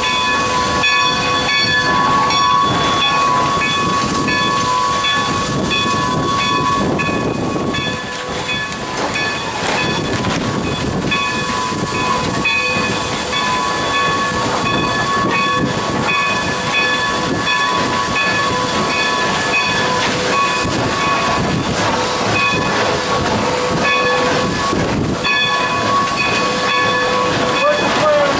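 Inside the cab of a 1909 steam locomotive moving slowly: a steady hiss of steam with constant high ringing tones, and a regular beat about twice a second.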